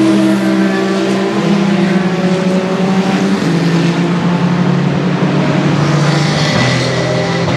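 Hypercar prototype race car engine running loud and steady, its note dropping in pitch in a few abrupt steps.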